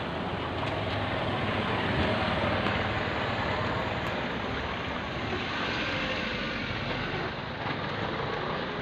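Road traffic: vehicles passing on a street, louder about two seconds in.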